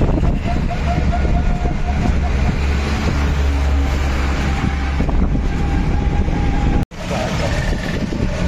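Steady low rumble of a vehicle riding through city traffic: engine, road and wind noise. The sound cuts out for an instant about seven seconds in.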